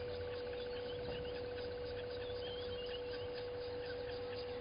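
Outdoor bush ambience: scattered short bird chirps and a fast, even pulsing over a steady high hum.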